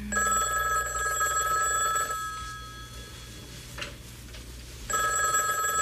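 Telephone ringing twice, each ring about two seconds long with a pause of about three seconds between them: an incoming call.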